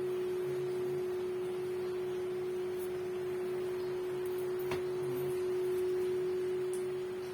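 A single steady tone that holds one pitch throughout, with one short click about two-thirds of the way in.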